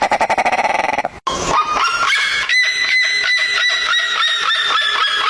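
Animal calls, two different ones joined by a sudden cut: a fast pulsed chatter that stops about a second in, then a rapid run of high, repeated calls, about five a second.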